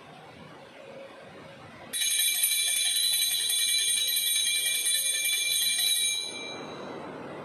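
Altar bell rung at the elevation of the consecrated host: a sudden, loud, high-pitched ringing starting about two seconds in, held steady for about four seconds, then stopping with a short fade.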